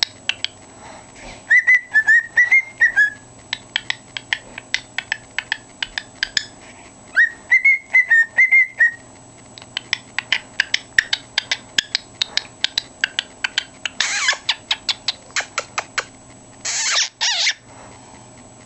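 Cockatiel whistling two short warbling song phrases, with quick sharp clicks, several a second, between and after them. Near the end come three short hissy bursts, one alone and then two close together.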